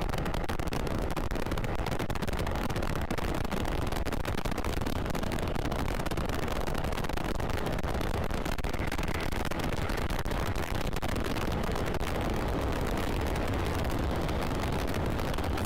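Steady wind rush and buffeting on the microphone of a motorcycle rider at speed, with the Kawasaki KRV 180 TCS's engine running underneath.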